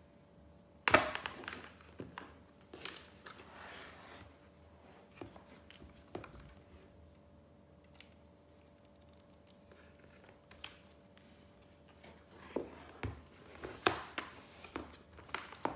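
Handling noise as a laptop charger cable is laid out and its plug pushed into the side of an Acer Aspire 3 laptop, and the laptop is shifted on its cardboard box: scattered knocks, clicks and rustles. The loudest is a sharp knock about a second in, with a busier run of clicks and knocks near the end.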